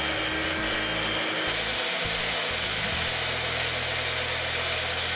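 Small electric personal blender running continuously, grinding moringa leaves into a wet coconut, shallot and green chilli paste. The whirr grows brighter about a second and a half in and evens out to a steady note about three seconds in as the mixture turns smooth.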